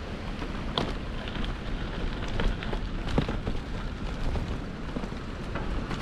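Wind rush on the microphone of a moving bicycle, with tyre rumble and a few sharp rattling knocks as it rides over bumpy grass and dirt.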